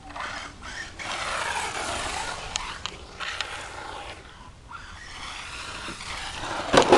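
Electric RC buggy with a brushless motor driving across pavement: a rush of tyre and motor noise that swells and fades twice, with a loud clack near the end.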